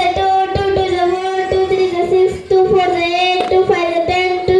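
Children singing a song or rhyme together in chorus, loud and with a steady, sung melody.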